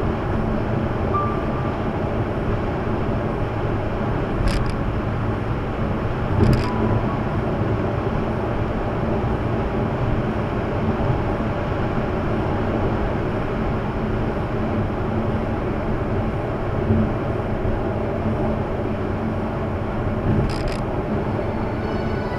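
Steady tyre-and-wind road noise heard inside an Audi A8's cabin at high highway speed, with three brief thumps spread through it, the last near the end.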